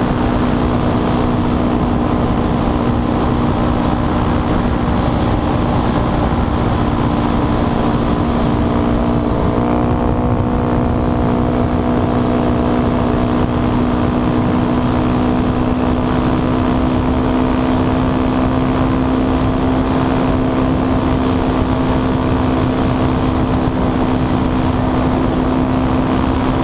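Dual-sport motorcycle engine running at a steady cruising speed, with heavy wind noise on the helmet-mounted microphone. The engine note shifts slightly about nine seconds in, then holds steady again.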